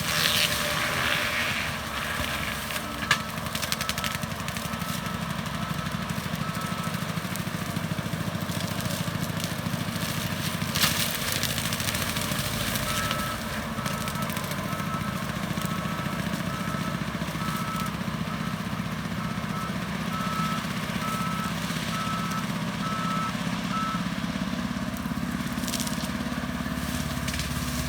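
A John Deere 333G skid steer running steadily with its forestry disc mulcher. Its reversing alarm beeps in a regular series twice, as the machine backs up. A few sharp cracks come through, near the start and about ten seconds in.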